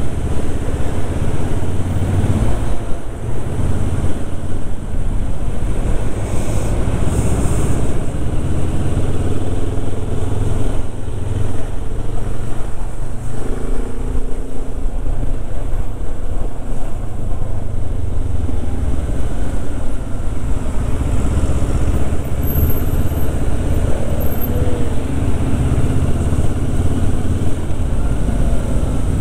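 Motorcycle engine running steadily at low city speed, recorded from the rider's own bike with a deep rumble of wind and engine on the microphone.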